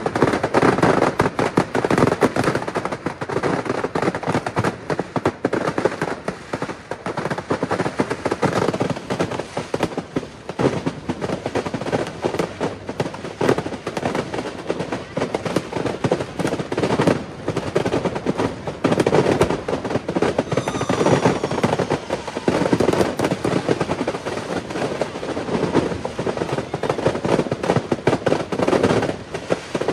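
Firework display: a continuous rapid barrage of bangs and crackling from shells bursting overhead, with a brief high whistle about twenty seconds in.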